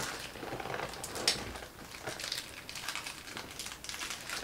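Rustling and handling noise of a person shifting and reaching around, with scattered small clicks and knocks and one sharper click about a second in.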